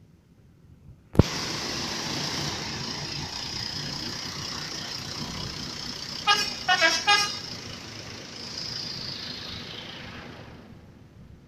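A bus's six-trumpet telolet horn giving a quick run of short toots, about four notes, a few seconds in. The toots sound over a steady rushing noise that starts suddenly about a second in and fades near the end.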